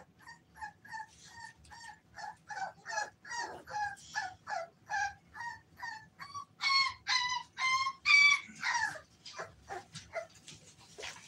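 American bully puppies whining: a steady string of short, high whimpering cries, about three a second, getting louder for a couple of seconds past the middle.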